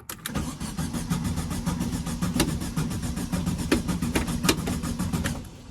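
Volkswagen Beetle engine cranking over on the starter for about five seconds without catching, a fast, even churning that stops just before the end. The crew takes the failure to start for a lack of spark.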